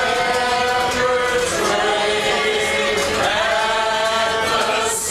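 A group of people singing a Christmas carol together, unaccompanied, holding slow drawn-out notes.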